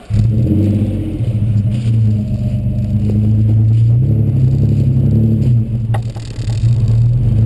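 Exhaust of a 2004 Suzuki Grand Vitara's 2.5-litre V6 through a Magnaflow muffler, the engine running with a steady low note. A sharp click sounds about six seconds in, as the level dips briefly.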